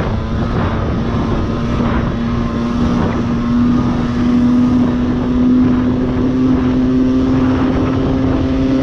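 Aprilia moped's two-stroke engine running at steady high revs on its stock exhaust, cruising at about 66 km/h. Its note holds steady and climbs a little around the middle, over wind rumble on the microphone.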